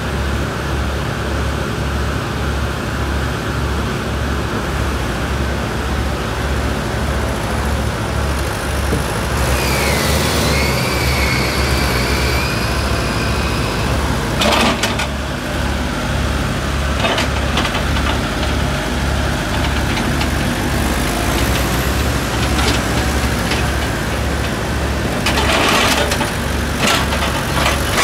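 Diesel engine of a Kobelco TLK 860 tractor loader backhoe running, with a low, even beat. About a third of the way in a high whine rises and holds for about four seconds, and a few sharp knocks come later.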